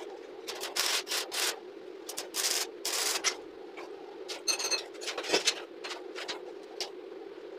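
Hands rubbing and scraping over the steel scrollwork of a tack-welded window grill, a run of short scrapes over a steady background hum. A brief metallic ring comes a little past halfway, and a sharp click follows shortly after.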